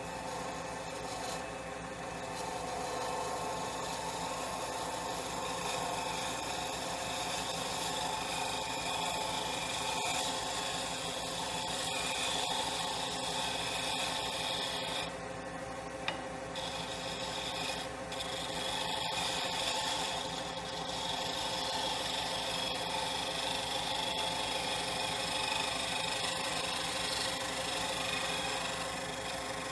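Roughing gouge cutting a cocobolo pen blank spinning on a Jet 1221VS wood lathe. A continuous scraping of the cut runs over the lathe's steady motor hum, and the cutting noise drops out briefly a few times past the middle.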